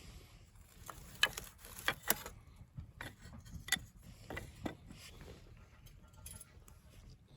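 A string of sharp clicks and light knocks, irregularly spaced about half a second to a second apart, over a low steady rumble.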